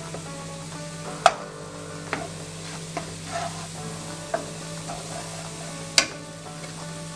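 Wooden spatula stirring garlic and onion frying in butter in a nonstick skillet, with a light sizzle and a few sharp knocks of the spatula on the pan, the loudest about six seconds in.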